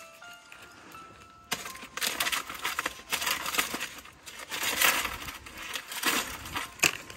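Dry leaves and fronds crackling and rustling in quick, irregular bursts that start suddenly about a second and a half in, with a sharper crack near the end.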